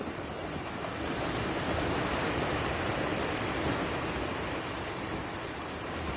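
Steady rushing noise of sea surf, swelling slightly about two seconds in.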